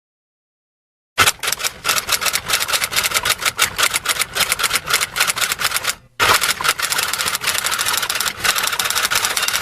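Rapid typing: a fast, steady run of key clicks starting about a second in, with a brief break near the middle before it carries on.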